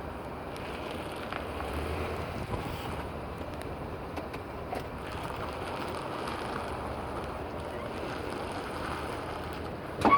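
Steady vehicle noise with wind on the microphone, and one sharp pop near the end: the 2017 Silverado's front-end popping noise that comes when turning the wheel.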